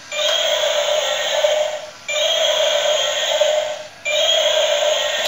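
Battery-powered toy dinosaur playing its built-in electronic sound loop, a steady synthetic phrase that repeats about every two seconds with a brief break between repeats.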